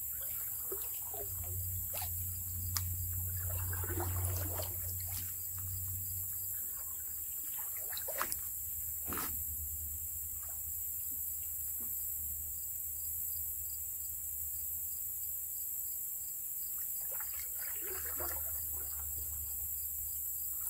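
Steady high insect drone over a river, with soft water sounds and a few light knocks from the canoe and fishing gear, the sharpest around two and eight to nine seconds in.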